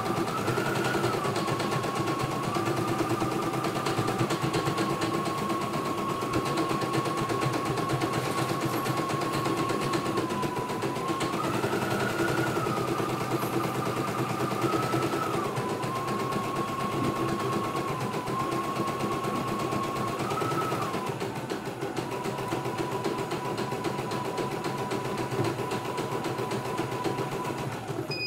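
CNY E900 computerized embroidery machine stitching a design in its hoop: a rapid, steady needle clatter over a motor whine that rises briefly in pitch several times.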